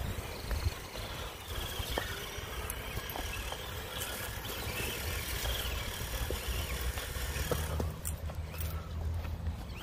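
Two RC scale crawlers, a Traxxas TRX-4 '79 Ford Bronco and a Redcat Gen7 Pro, driving along a dirt trail: the faint whine of their electric motors and gears over the crunch of tyres and footsteps in dry leaves.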